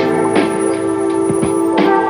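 Background music: sustained keyboard-like tones with a steady percussion beat.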